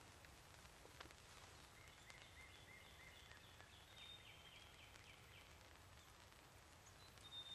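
Faint songbirds over quiet woods: a run of quick, evenly repeated short notes, then a clear two-note whistle, high then lower, near the end. There is a single soft click about a second in.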